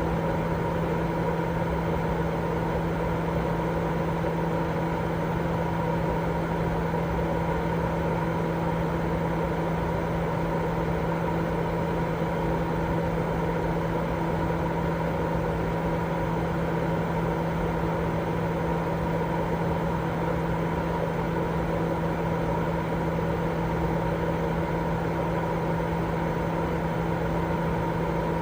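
Continuous, unchanging white-noise sleep sound, weighted toward the low end, with a steady hum running through it.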